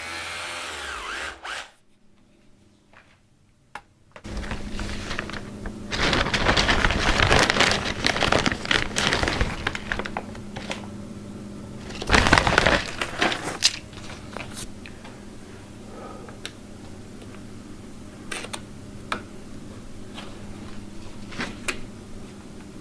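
Hand building work on masonry and timber: a few seconds of dense scraping and rubbing, a louder burst, then scattered knocks, over a steady low hum.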